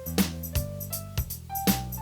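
Electronic instrumental music from a rhythm-machine beat, a sustained low synth bass and a synth melody that climbs one note at a time, about five notes in two seconds.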